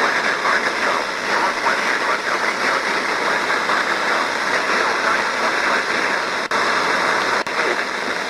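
Heavy static hiss from a weakly received radio broadcast, with a voice reading a weather alert faintly buried in it; the signal drops out for an instant twice near the end.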